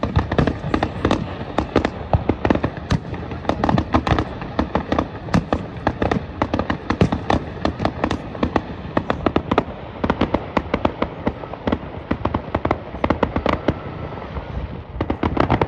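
Aerial fireworks display: a dense, unbroken string of sharp bangs and pops from shells bursting, many each second.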